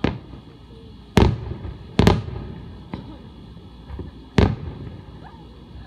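Aerial firework shells bursting in a string of loud bangs: one right at the start, then about a second in, a quick double bang at two seconds, a weaker crack at three and another loud bang past four seconds. Each bang trails off in a short echoing rumble.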